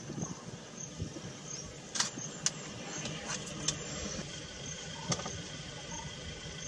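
Safari vehicle's engine idling, a steady low rumble, with a few sharp clicks scattered through it.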